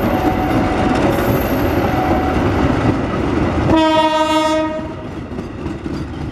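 Passenger coaches rolling past on the track with loud wheel and rail noise. About four seconds in, the train's horn sounds once for about a second, then the rolling noise eases off a little.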